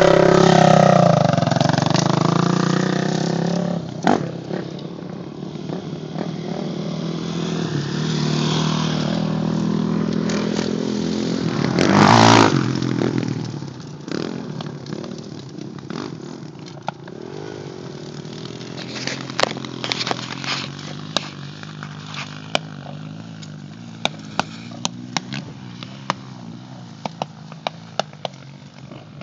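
Dirt bike engines revving hard on a hill climb, loudest in the first few seconds, then running on with a sharp burst of revs about twelve seconds in. After that the engine noise drops away to a distant hum, with scattered sharp clicks near the end.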